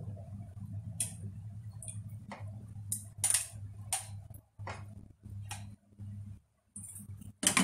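Metal kitchen tongs clicking and tapping against a plate and pot as raw shrimp are lifted into a pan of risotto: a dozen or so short, irregular ticks over a steady low hum.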